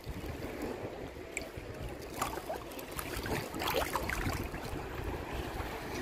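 Choppy sea water sloshing and lapping around a wader, heard from a phone held just above the surface, with wind rumbling on the microphone and a few small splashes.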